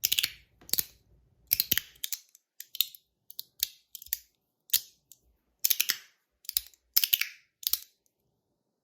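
Fidget slider being pushed back and forth along its track, snapping into place with sharp clicks in both directions: about a dozen clicks at an uneven pace, some in quick pairs, with short pauses between.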